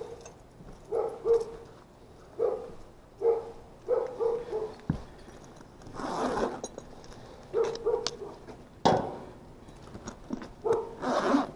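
A dog barking repeatedly in short barks, with a few noisier bursts in between.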